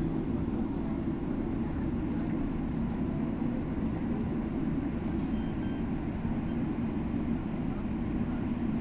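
Jet airliner cabin noise while taxiing after landing: a steady low rumble of the engines at low thrust and the plane rolling along the taxiway.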